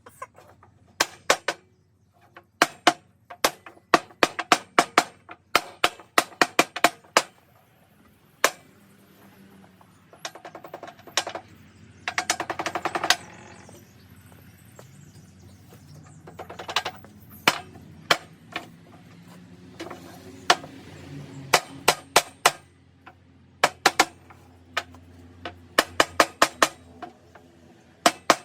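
Repeated sharp knocks and taps coming in quick clusters, with a rapid rattling buzz about halfway through.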